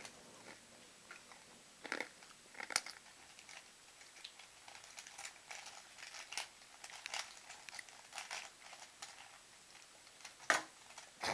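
Plastic Rubik's Cube being turned by hand: irregular clicks and rattles as its layers twist, with a sharper clack about ten and a half seconds in.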